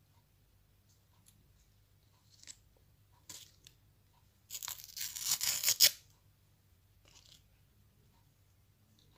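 Paper wrapper being torn off an ice cream cone: a couple of short rips, then one loud tear lasting about a second and a half around the middle.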